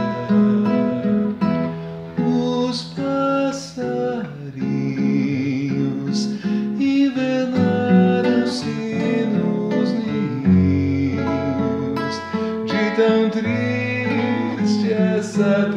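Yamaha C40 nylon-string classical guitar with old strings, played as an instrumental passage: plucked and strummed chords over a moving bass line.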